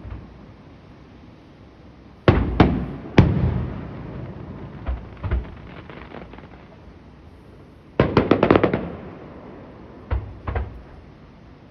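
Aerial fireworks bursting: three loud bangs a couple of seconds in, then scattered smaller pops and crackle. A rapid string of crackling reports comes about eight seconds in, and two more bangs near the end, each bang leaving a low rumbling tail.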